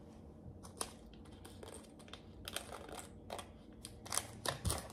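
Hands handling small jewelry packaging: scattered light clicks and crinkling, getting busier and louder near the end.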